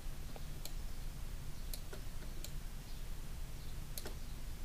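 About six sharp, scattered clicks from computer input devices over a steady low hum.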